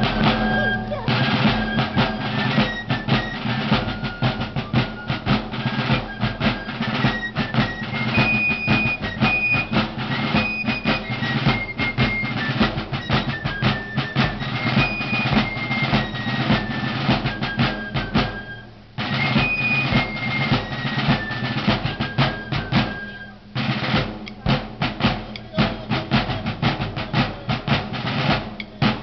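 Fife and drum corps playing: several fifes carry a shrill melody over rapid snare-drum rolls and strokes. The tune breaks off for a moment about two-thirds of the way through and starts again. In the last few seconds the fifes stop and the drums play on alone.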